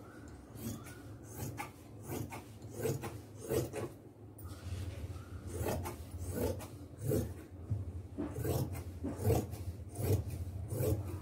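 Scissors cutting through cloth in a run of short snips, about one or two a second, with a pause around four seconds in, over a low steady hum.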